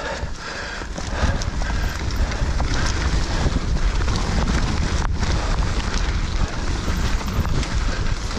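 Mountain bike riding fast over a rough dirt trail: tyres rumbling on the ground, with constant rattling and clattering from the bike over bumps and roots, and wind buffeting the microphone.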